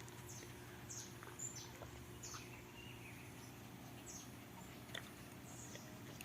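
Faint bird chirps: several short, high calls, each dropping quickly in pitch, scattered through a few seconds over a low steady hum.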